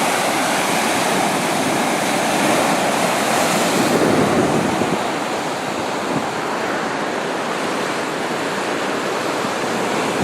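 Ocean surf washing onto the beach: a steady rush of noise that swells about three seconds in and eases a little after.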